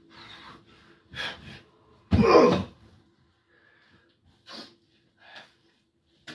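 A man breathing hard in short gasps and puffs, winded from wrestling moves on a mattress. One much louder burst comes about two seconds in and lasts about half a second.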